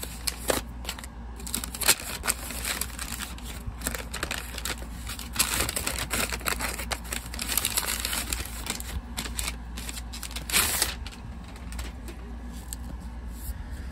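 Book packaging being handled and unwrapped: irregular crinkling and rustling with scattered sharp clicks and taps, busiest in the middle and again about ten seconds in, over a steady low hum.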